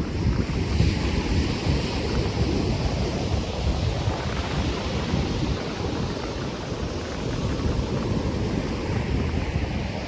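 Ocean surf washing continuously onto the beach, with a swell of hiss a second or two in, under a heavy low rumble of wind buffeting the microphone.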